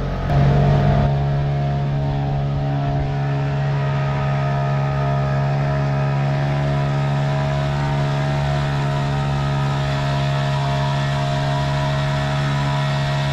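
Hangkai 6 hp two-stroke outboard motor running steadily at half throttle under load, pushing a small boat at about 8 mph during its break-in. There is a brief louder rush just after the start.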